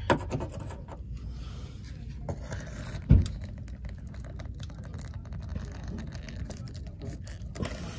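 A flat scraper blade scratching old sealant off the rim of a through-hull hole in a fiberglass hull, in many short strokes. A single low thump about three seconds in.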